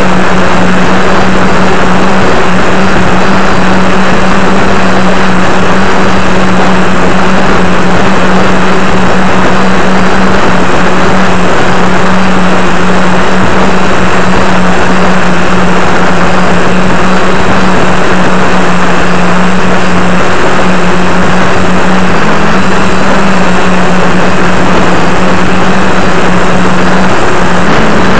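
DJI F450 quadcopter's electric motors and propellers running at a steady pitch, very loud, heard through the camera mounted on the craft along with a rush of wind and rotor wash over the microphone. The pitch wavers slightly near the end.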